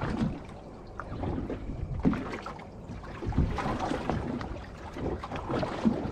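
Water slapping against the hull of a small drifting boat, with wind buffeting the microphone in uneven gusts.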